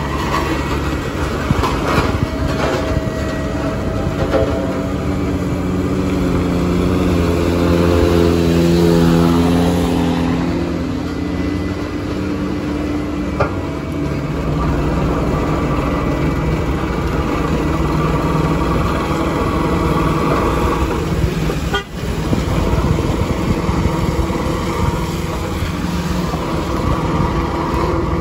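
Diesel engines running: a BOMAG single-drum road roller working close by, with vehicles climbing the muddy grade behind it. A louder, steady-pitched engine drone swells from about six to ten seconds in.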